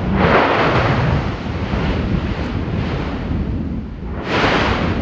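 Strombolian eruption of Yasur volcano: a sudden rushing blast just after the start that fades over about a second, and a second blast about four seconds in, over a steady low rumble.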